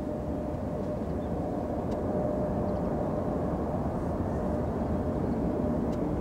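Twin-engine jet airliner climbing out after takeoff: a steady low rumble of its engines at climb power, with a faint steady whine, swelling slightly about two seconds in.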